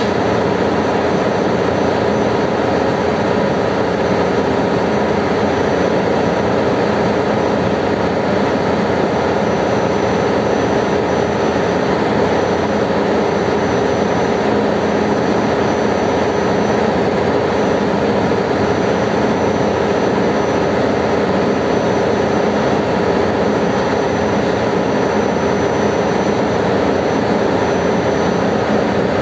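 Ship's engine-room machinery running: a loud, steady drone with a few steady tones in it.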